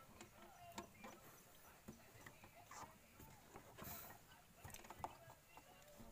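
Faint, scattered metallic clicks and taps of a 14 mm open-end wrench working the fuel filter housing bolts on an Isuzu 4JA1 diesel engine.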